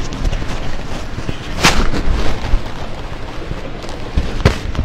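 Low rumbling handling noise with two sharp knocks, one about a second and a half in and the other near the end.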